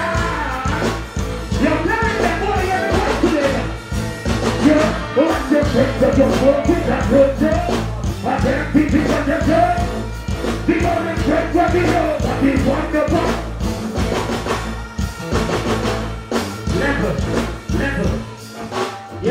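Live dancehall music over a stage sound system: a heavy bass and drum beat with a man deejaying into the microphone over it. The bass drops out near the end.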